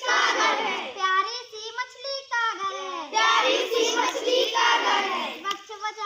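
A group of young children singing a Hindi call-and-response rhyme in chorus. Between the chorus lines, near the first and third seconds, a single voice sings on its own.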